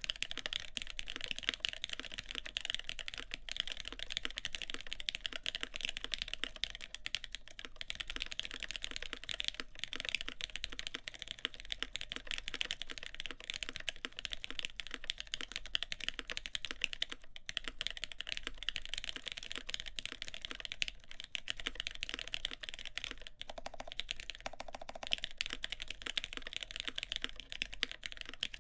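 Continuous fast typing on a CAKE60 mechanical keyboard with lubed Gateron X switches and GMK keycaps on a full aluminum plate: a dense, even stream of keystroke clacks with no pauses.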